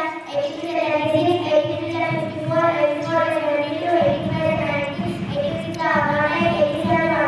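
A girl singing solo into a microphone, with long held notes and smooth changes in pitch. A low rumble joins about four seconds in.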